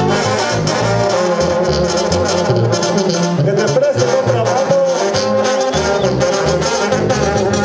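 Brass-band music, trumpets and trombones over a steady bass beat.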